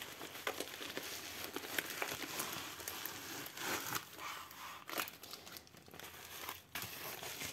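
Packaging rustling and crinkling with small clicks as a mailing envelope is opened and a rolled canvas in clear plastic wrap is pulled out and handled.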